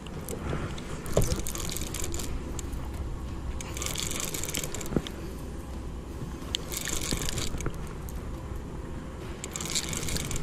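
Water washing against a boat's hull in four hissing surges about every three seconds, over a steady low rumble.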